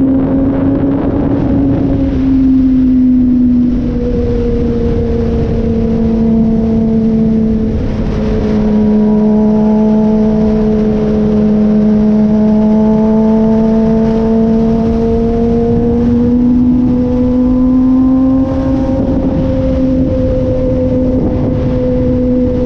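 Sportbike engine running steadily at high highway cruising speed, its pitch sagging slightly partway through and climbing back near the end, over heavy wind rush.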